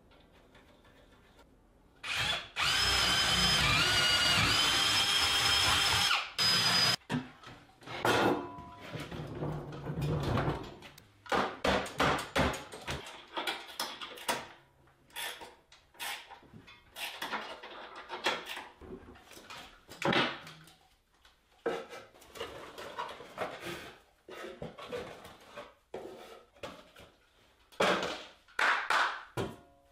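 A power drill running for about four seconds, its motor whine dipping and rising in pitch as it drives fasteners. After it come scattered knocks, clunks and rattles of metal and wood parts being handled and fitted.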